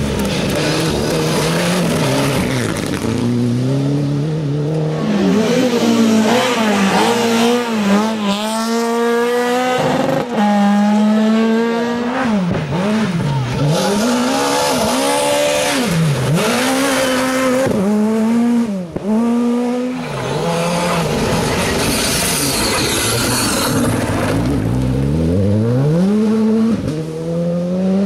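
Rally cars at full throttle on a loose gravel stage, one after another: engines revving hard, the pitch climbing and dropping again and again, with a run of quick swoops down and back up about once a second in the middle. Gravel and tyre noise hiss under the engines.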